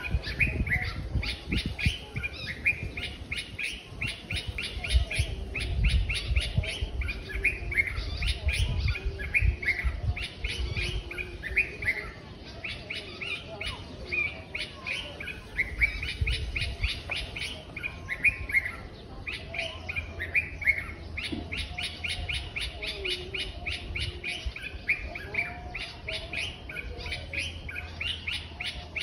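A morning chorus of several birds: fast runs of high chirps overlapping with short down-slurred whistled calls, going on throughout. A low rumble sits beneath the birds, heaviest in the first half.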